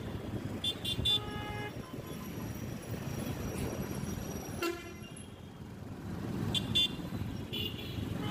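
Busy city road traffic with vehicle horns honking: one horn held for about a second near the start, a short toot around the middle, and a few brief beeps later.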